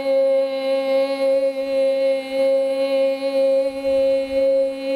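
Frosted quartz crystal singing bowl rubbed around its rim with a mallet, singing a steady, sustained tone with many overtones and a gently pulsing wobble.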